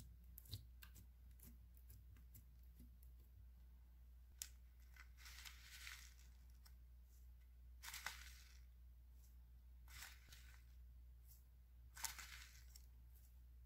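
Small clear plastic bag crinkling and rustling as it is handled and opened, with foam beads poured from it onto slime. The sound comes in short spells about four times, with a few sharp clicks between.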